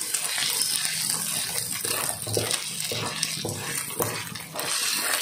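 Spice paste frying in hot cooking oil, with a steady sizzle and dense crackling. The oil is left over from frying egg-battered chicken and is foaming. The paste is being cooked down until dry.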